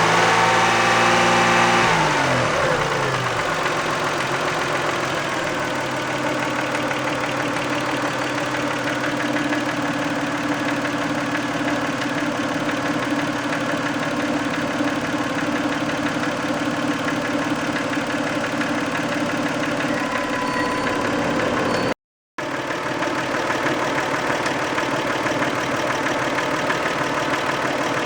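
Toyota 2VZ-FE 2.5-litre V6 in a 1990 Camry, its revs falling from a raised speed to idle in the first two seconds, then idling steadily. This engine developed a knock once warm, which the owner later guessed was varnish on a valve shim or bucket that eventually worked loose.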